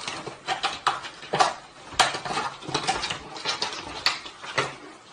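A run of irregular clattering knocks and rattles, several a second: a cat flap banging as a cat dives through it.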